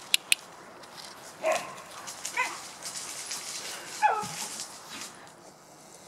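Puppies at rough play: three short high yips, about a second and a half in, near the middle and about four seconds in, each falling in pitch. A couple of sharp clicks come right at the start.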